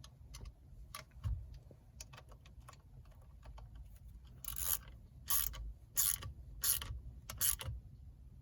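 Hand wrench on an Allen key tightening steering-hub bolts: light metal clicks at first, then five quick ratcheting strokes in a row, about two-thirds of a second apart.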